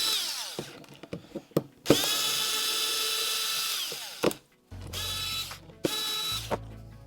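Cordless drill-driver backing out the screws of a battery pack's case. The motor whine winds down at the start, runs steadily for about two seconds, then comes in two short bursts, with small clicks of handling in between.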